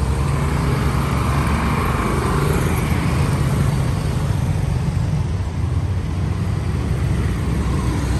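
City street traffic: motorbikes, three-wheeled auto-rickshaws and cars passing close by, giving a steady run of small engines and tyre noise, with one louder pass about one to three seconds in.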